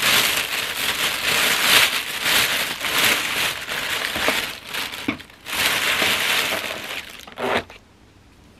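White plastic carrier bag crinkling and rustling as it is untied and pulled open by hand. There is a short pause about five seconds in, then more rustling that stops shortly before the end.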